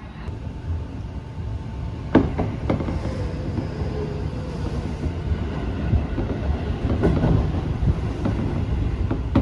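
Commuter train running, heard from inside the car: a steady rumble that grows louder over the first two seconds, with sharp clacks of the wheels over rail joints, two of them a little over two seconds in.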